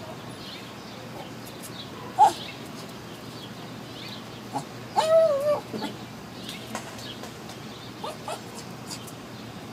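Shih Tzu whining, eager to get at a cat: a short whine about two seconds in, a longer wavering whine about five seconds in, and two short whines near the end.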